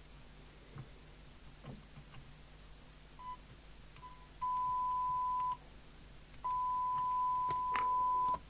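A steady test tone from a CB radio's speaker, cutting in and out as the squelch is adjusted around its threshold: two short blips, then about a second of tone, a gap, and about two seconds more, with a few faint clicks in between.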